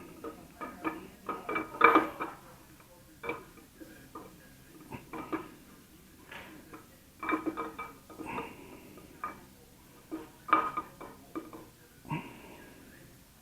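Metal tools and engine parts clinking and clanking in irregular strikes, some with a short ring, during teardown of a 5.7 Hemi V8. The loudest clanks come about two seconds in and near the eleven-second mark.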